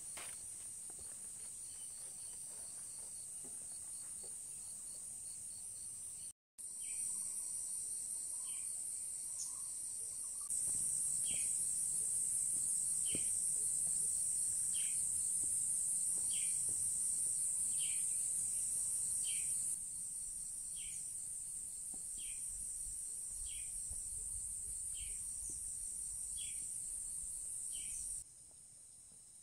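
Steady, high-pitched chorus of tropical forest insects, crickets or cicadas, joined through the middle by a short falling call repeated about every second and a half. The chorus drops out briefly about six seconds in and changes level in steps at the cuts.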